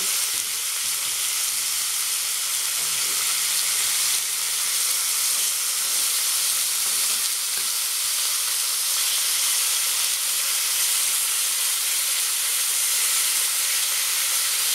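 Streaky bacon rashers sizzling steadily in a hot frying pan.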